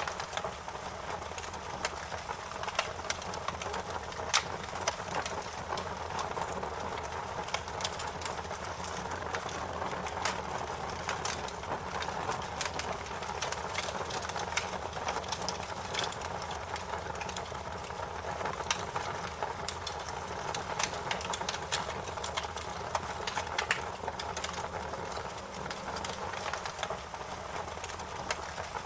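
Wood fire crackling: a steady hiss with frequent, irregular sharp pops and snaps.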